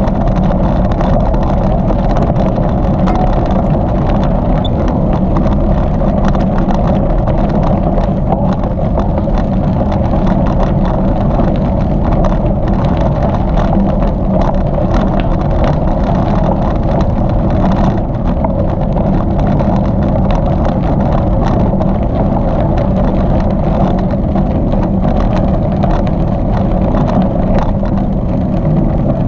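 Steady, loud rumble of a bicycle rolling along a rail trail: tyre noise from the trail surface mixed with wind buffeting the microphone.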